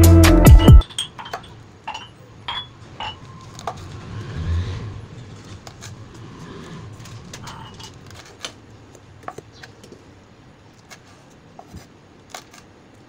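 Electronic background music cuts off suddenly under a second in. Then a kitchen knife cuts green chillies on a chopping board: light, irregular taps of the blade on the board.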